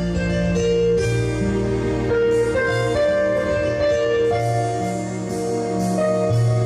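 Slow instrumental music: sustained keyboard chords under a simple melody line, with no singing.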